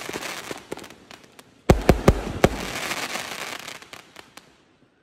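0.8-inch, 368-shot fireworks cake firing: a crackle fading out, then nearly two seconds in a loud bang with a second one a moment later, followed by a long run of crackling pops that dies away near the end.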